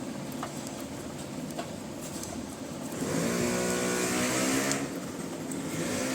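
A motor or engine running in two spells with a slightly rising hum, about halfway in and again near the end, after a few light taps.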